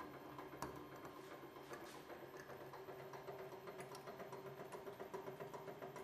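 Hydraulic press running with a steady hum as its ram squeezes a shattered shark tooth, with scattered small crackles and ticks as the fragments give way under rising pressure.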